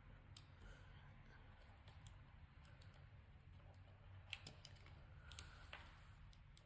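Near silence broken by a few faint small clicks and taps about four to six seconds in, from handling a thin wire and the screw terminals of a small LED dimmer receiver.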